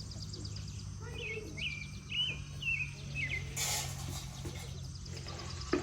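Outdoor rural ambience: a bird gives a run of short chirps in the middle, over fast, even insect pulsing and a steady low hum. A brief hiss or rustle comes about three and a half seconds in.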